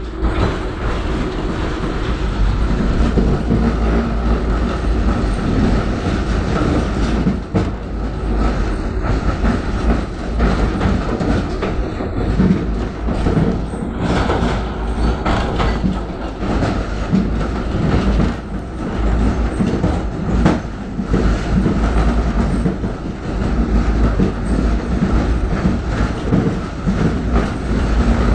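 A tram in motion heard from inside the passenger car: a steady low rumble from the running gear, with the wheels clacking over rail joints now and then.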